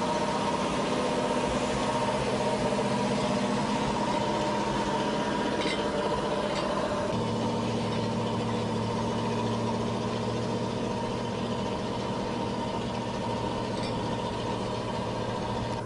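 An engine running steadily with a whine on top. About seven seconds in, the note changes: the whine and upper tones fade and a lower hum grows stronger.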